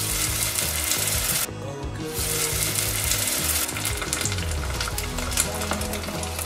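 Cheese-filled brick-pastry samosas deep-frying in hot oil in a saucepan: a steady sizzle full of small crackles, which drops away briefly about a second and a half in and then resumes.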